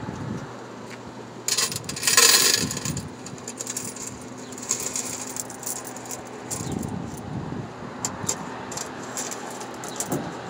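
The metal coin box of a Dixie Narco 501e vending machine is pulled out with a loud rattling scrape about two seconds in. Then quarters clink against each other and the box as they are tipped from the box into a hand.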